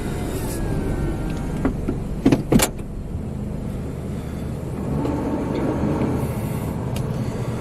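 Car engine and rolling rumble heard from inside the cabin as the car creeps forward slowly, with a few sharp clicks or knocks about two seconds in.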